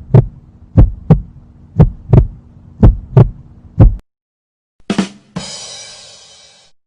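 Heartbeat sound effect: paired low thumps about once a second, about four beats, over a steady low hum. About five seconds in, a short hit is followed by a crash-like ring that fades out over about a second and a half.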